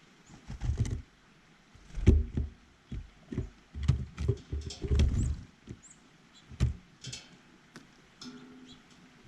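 Irregular knocks, taps and thumps close to the microphone, as birds land and peck at a feeder beside the camera, with a brief high bird chirp about halfway through.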